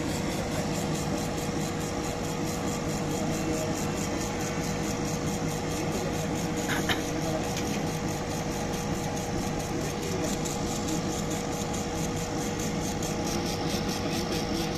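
CO2 laser engraver running while it engraves a wooden keychain tag: a steady machine hum and hiss with one steady tone throughout, and a single short click about seven seconds in.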